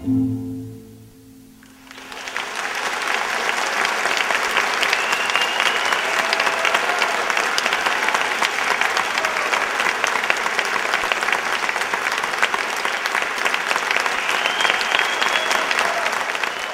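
The last held note of the music dies away, and about two seconds in an audience breaks into applause that keeps going at a steady level.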